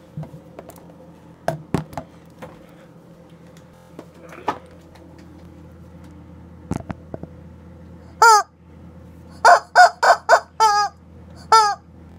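Rubber chicken toy squawking as it is squeezed: one squawk about eight seconds in, then a quick run of five and one more near the end, each a short, slightly falling reedy honk. Before that, scattered knocks and clicks.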